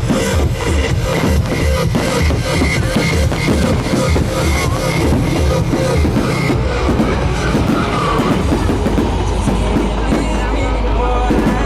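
Loud music with a steady drum beat; the beat drops out about halfway through.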